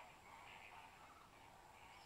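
Near silence with faint, distant calling from a flock of greater flamingos.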